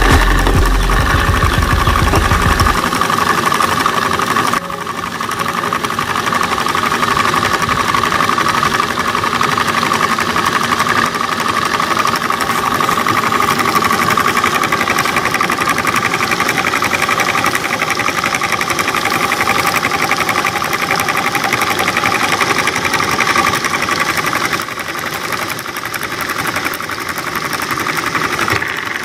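Small DC motor and belt-driven pulley running steadily with a whine. A low rumble underneath stops about three seconds in.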